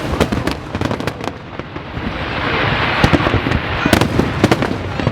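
Fireworks display: aerial shells bursting with rapid crackling, and a dense hissing crackle that swells in the middle.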